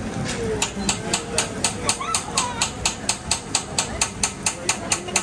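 Hibachi chef's metal spatula clacking in a steady rhythm, about four sharp clinks a second, starting about half a second in. Voices are faint underneath.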